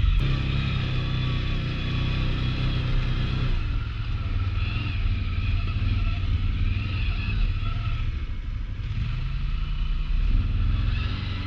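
ATV engine running under throttle, its pitch rising and falling as it revs.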